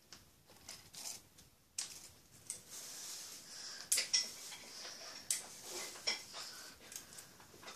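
Hands working through long hair close to the microphone: soft rustling and brushing swishes with a few light clicks and knocks, irregular.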